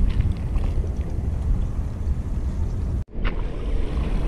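Wind buffeting the action-camera microphone: a steady low rumble, with a brief break about three seconds in.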